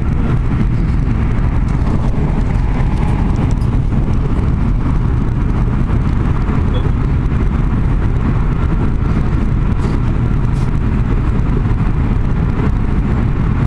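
Steady low road rumble heard inside a moving car, engine and tyre noise with no break.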